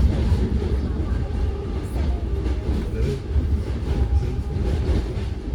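Train running along the track: a steady low rumble with faint clicks from the wheels and rails.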